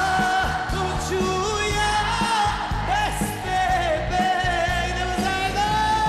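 Live Balkan folk-pop band music with a steady beat, under a long held lead melody that slides between notes.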